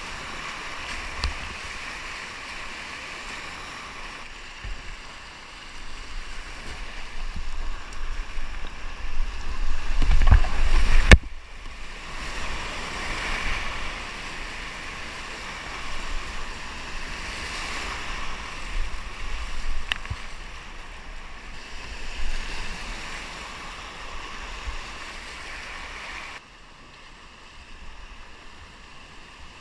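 Whitewater rapids rushing close around a kayak, with paddle splashes. About ten seconds in, a surge of splashing and low rumble builds and cuts off sharply. The water goes quieter near the end as the boat reaches flatter water.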